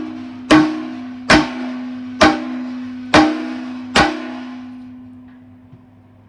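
A big hammer driving a plastic shive into the bung hole of a 4.5-gallon metal beer cask: five sharp blows about a second apart, each setting the cask ringing with a low steady tone. After the last blow, about four seconds in, the ringing dies away.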